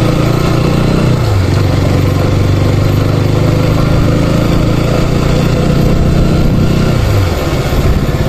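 Motorcycle engine running steadily under way, heard from the rider's seat. Its pitch dips and comes back up about a second in, then falls near the end as the bike eases off.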